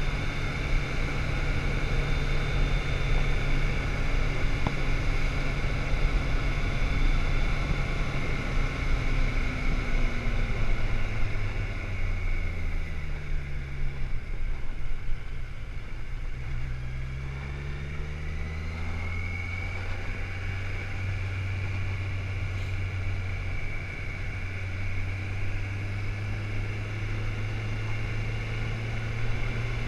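Motorcycle engine running while riding. The engine note falls as the bike slows for a tight bend about twelve to fourteen seconds in, then climbs as it accelerates out, and settles into a steady drone.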